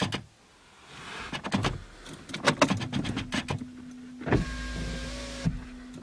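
Clicks and knocks of handling inside a car, with a low steady hum. About four seconds in, a car's electric window motor runs for about a second.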